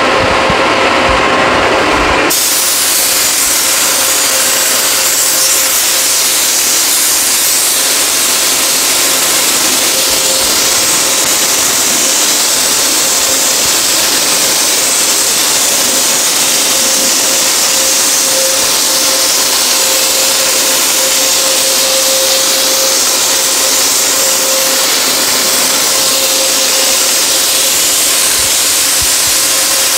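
Compressed-air paint spray gun hissing steadily as it sprays paint onto an engine block, switching on suddenly about two seconds in.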